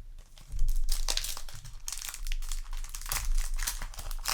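Crinkling of the foil wrapper of a Yu-Gi-Oh! booster pack as it is handled, with a string of irregular crackles.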